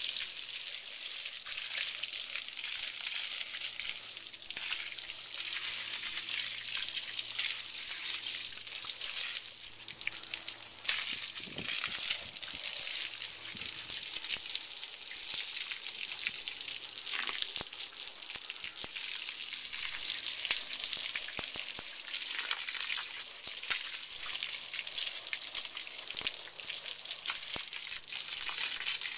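Water spraying steadily from a garden hose onto a horse's legs and splashing onto wet, muddy ground: an even hiss.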